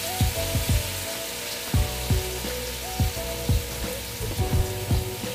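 Mixed vegetables sizzling steadily in a frying pan with a little water just added, a fine hiss that runs throughout. Background music with a thumping beat plays over it; the beat's thumps are the loudest sounds.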